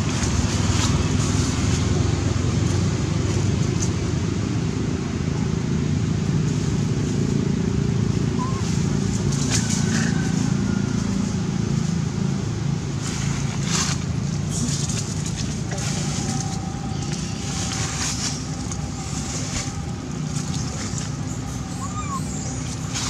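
Steady low outdoor rumble, with a few faint rustles and two brief faint chirps.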